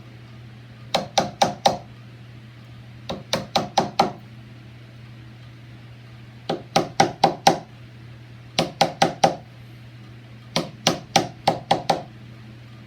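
Wood chisel tapped lightly with a rubber- and nylon-tipped mallet, in quick runs of four to six taps every couple of seconds, scoring the outline of a latch mortise in a fiberboard door edge. The taps are kept light so the thin edge doesn't split.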